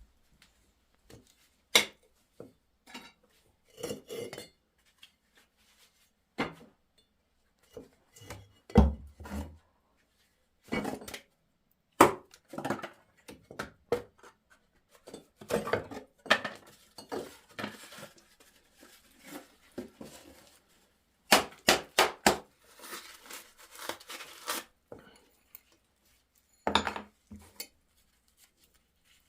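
Irregular clatter of hard objects being handled: separate knocks and clinks, with a few sharper, louder strikes and short quiet gaps between them.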